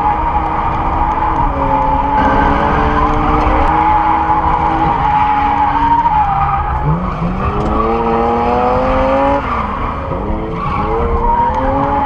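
Drifting car engines revving up and down as the cars slide, heard from inside the following car's cabin, with a steady high tyre squeal that fades in the middle and returns near the end. The revs dip and climb sharply twice, about seven and ten seconds in.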